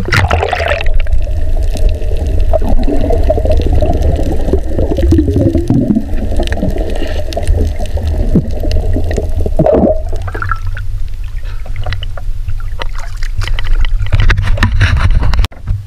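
Sea water sloshing and gurgling around a camera held at the waterline, some of it heard underwater, over a steady low rumble. A wavering hum runs from about half a second until about ten seconds in.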